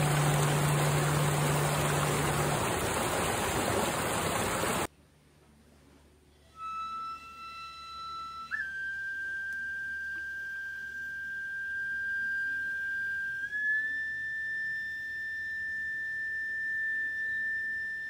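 Mountain stream rushing loudly, cut off abruptly about five seconds in. After a short near-silence, a shinobue (Japanese bamboo transverse flute) plays slow, long-held notes that step upward in pitch twice.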